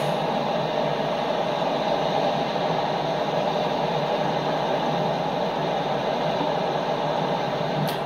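Steady rushing noise of the fast Niagara River current pouring along the rocks of the break-wall, played back through computer speakers.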